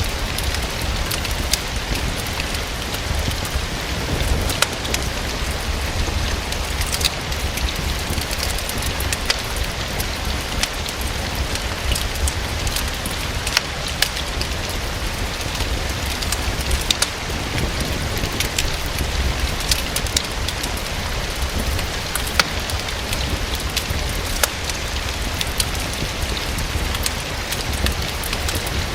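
Steady rain, an even hiss sprinkled with scattered sharp ticks and pops, mixed with the crackle of a wood fire in a fireplace.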